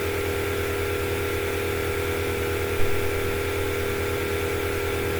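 Steady electric hum with a low, rapidly pulsing buzz and a few steady higher tones, unchanging throughout, with one brief faint knock a little past the middle.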